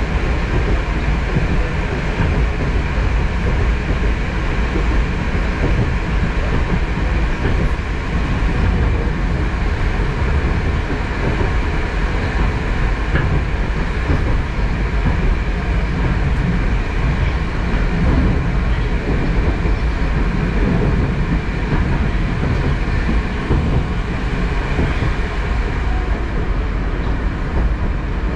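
Moskva-type Moscow Metro train running at speed, heard from inside the carriage: a steady rumble of wheels on rail and running gear.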